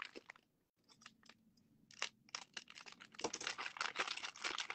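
Thin clear plastic bag crinkling and rustling in the hands as a miniature figure is worked out of it. It goes quiet about half a second in, then crinkles steadily from about two seconds in.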